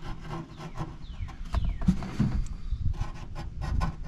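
Paint marker tip dabbed and scraped again and again against the cut edge of a hole in a sheet-metal truck bed: a run of quick taps and rubs.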